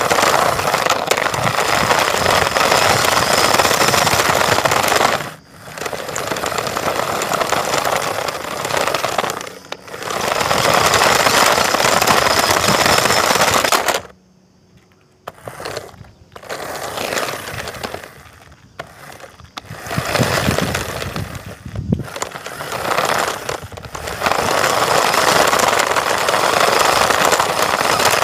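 RC drift car's tyres scraping and sliding over rough, gritty ground, picked up by a camera mounted on the car: a loud gritty rush in runs of a few seconds, broken by short pauses and one brief near-quiet stop about halfway through.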